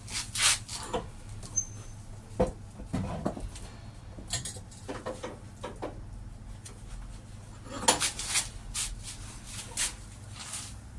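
Irregular clicks, scrapes and light knocks of a heavy piece of car-door steelwork being shifted and handled, with a steady low hum underneath.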